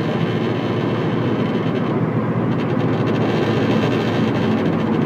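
Subaru Impreza hatchback at highway speed, heard from inside the cabin: a heavy, deep drivetrain buzz from the rear over the road noise. It pulses like a propeller or helicopter rather than humming steadily, which the driver leans toward blaming on a worn U-joint in the driveshaft.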